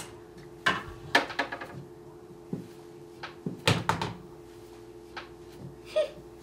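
Pool balls clicking and knocking on a pool table: a scattered series of sharp clicks, loudest about three and a half to four seconds in, over a steady hum.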